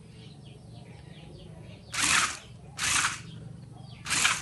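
Toy RC stunt car running in three short bursts of about half a second each, from about two seconds in, as its motors drive the wheels round on a woven plastic mat. Birds chirp faintly in the background.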